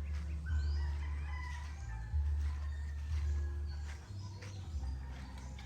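Birds calling, short chirps and brief gliding calls scattered through, over a low, steady rumble.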